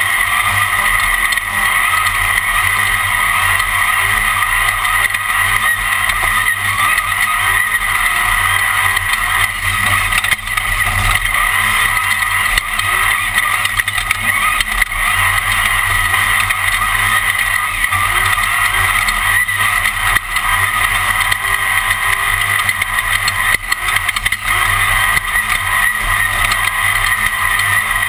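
Class One off-road race car running at speed, heard from on board: a loud, steady engine drone with no let-up.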